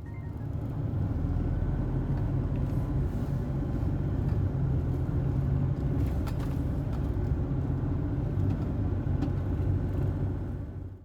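Car on the move: steady low rumble of engine and road noise. It cuts off abruptly at the end.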